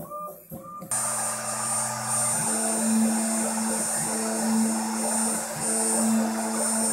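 Stepper motors of a home-built CNC router give short rising whines, then about a second in the rotary-tool spindle switches on and runs with a steady high whine and hiss. Pitched stepper-motor tones pulse beneath the spindle at regular intervals.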